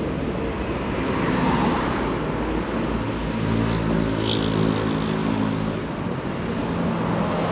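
City road traffic, with a motor vehicle's engine droning past at close range, loudest about halfway through.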